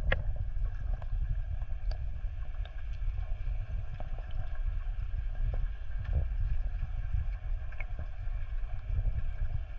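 Muffled underwater rumble of water moving around a camera housing, with a few faint scattered clicks.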